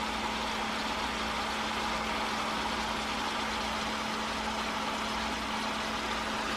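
Shredded cabbage and onion cooking in an oiled frying pan on the stove: a steady sizzling hiss, with a steady low hum underneath.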